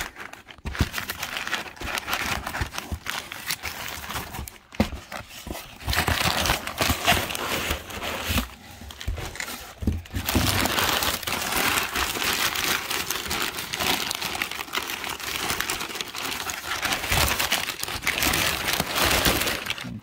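Crumpled brown kraft packing paper crinkling and rustling as it is pulled out of a cardboard shipping box by hand, with a couple of short lulls.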